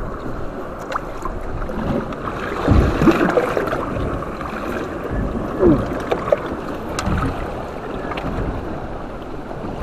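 Water sloshing and lapping against the hull of a small boat on choppy sea, with wind on the microphone; the swell is louder around three seconds in and again near six seconds.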